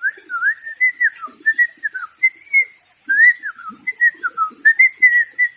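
A whistled tune: a quick run of short notes that glide up and down, with a few faint soft knocks underneath.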